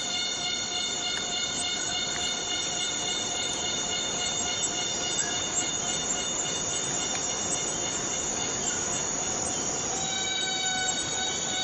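Chorus of forest cicadas: a steady, dense buzzing with several sustained high whining tones on top, which weaken about a second in and grow stronger again near the end.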